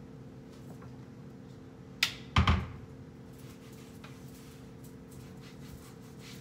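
Kitchen cabinet door being swung shut: a sharp knock about two seconds in, then a louder, heavier thump as it closes. Quieter cloth rubbing on the cabinet fronts before and after, over a steady low hum.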